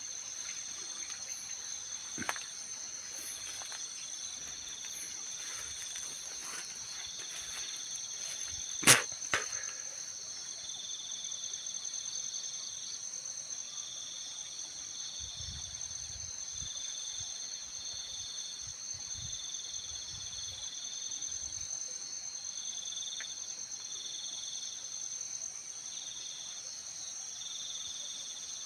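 Night insects, crickets among them, calling without pause. One high trill is steady and another comes in pulses of about a second each. A sharp click cuts through about nine seconds in.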